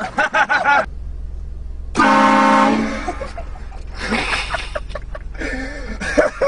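One short, very loud blast from oversized add-on horns fitted to a car: a steady, many-toned blare that starts abruptly about two seconds in and lasts under a second.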